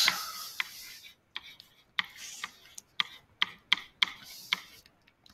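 Stylus writing on a tablet screen: irregular light taps and short scratchy strokes as words are handwritten.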